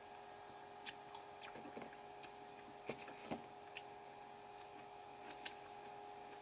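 Someone chewing a Big Mac with a lot of lettuce in it, heard as scattered faint clicks and small crunches, over a steady faint hum.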